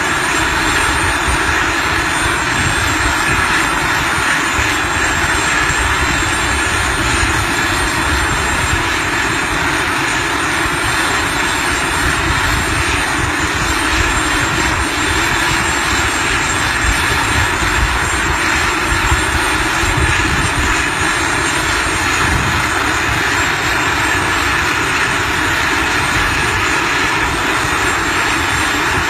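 Small jet turbines of a jet-powered hoverboard running steadily, a loud, even rushing noise that holds the same pitch throughout.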